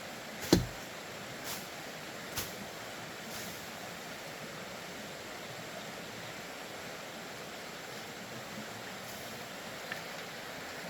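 One sharp knock about half a second in, then a lighter tap about two seconds later, over a steady hiss.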